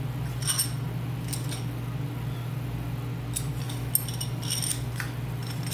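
A few scattered light metallic clinks and taps as the assembled air motor, its aluminium plate and control valve, is handled and turned over on a workbench, over a steady low hum.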